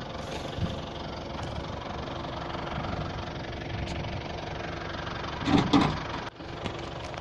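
A vehicle engine idling steadily. A brief, louder voice-like sound comes about five and a half seconds in.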